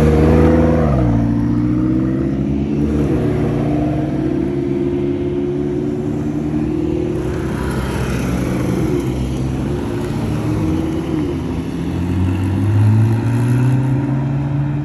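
Supercar engine revving: the revs fall back about a second in, then it runs low with a few short throttle blips.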